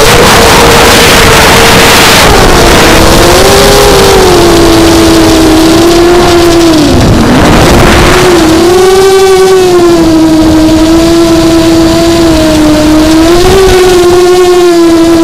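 Mini H-frame FPV quadcopter's brushless motors and propellers whining as heard from the onboard camera, the pitch wavering up and down with throttle. There are rushes of wind noise in the first couple of seconds and again around seven seconds in.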